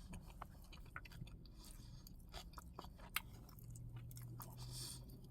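A person chewing a mouthful of bacon cheeseburger close to the microphone: faint, wet mouth clicks and smacks. A low hum sounds through the second half.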